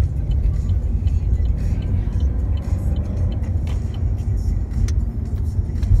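Steady low rumble of engine and road noise inside the cabin of a moving 2015 Chevrolet SS, with its 6.2-litre V8 running at cruise.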